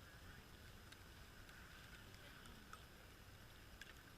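Near silence: a faint steady background hiss with a few faint clicks.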